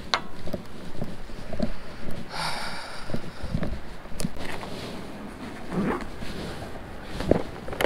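Close handling noise: jacket fabric rustling against the microphone and gear knocking as a bag is reached into, with a short raspy scrape about two and a half seconds in.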